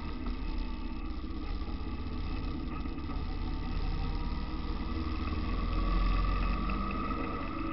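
A vehicle's engine running while driving, with road and wind noise. The engine gets louder and slightly higher in pitch around six seconds in, as if accelerating.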